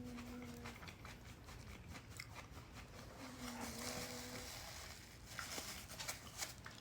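A sleeping pet snoring: a steady, low whistling tone about a second long, heard at the start and again about three seconds in, with the next snore starting near the end. Faint clicks and crinkles run underneath.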